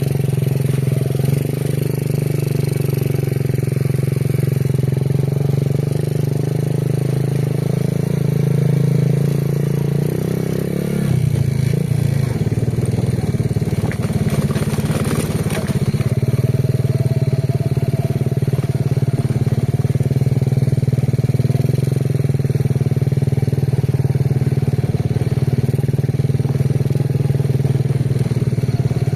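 Motorcycle engine running steadily while riding. The engine note breaks off and becomes unsettled about eleven seconds in, then settles back to a steady run a few seconds later.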